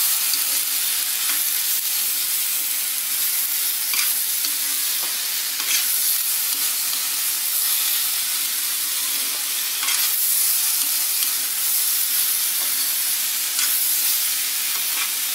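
Diced raw mango, onion and tomato sizzling in oil in a kadai while a metal spatula stirs them, with a steady hiss and a few sharper scrapes of the spatula against the pan.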